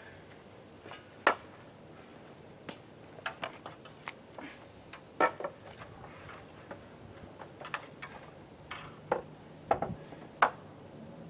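Scattered sharp knocks and clicks at irregular spacing, the loudest about a second in, midway and near the end: a man climbing a ladder and handling a wooden trim board against a cabin wall.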